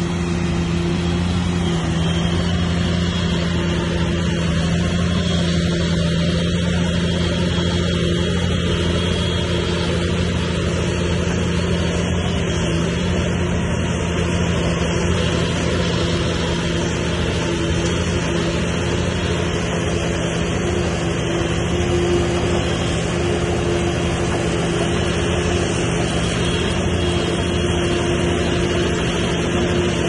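Heavy diesel engine of a bulldozer running at a steady speed, a constant drone with no revving.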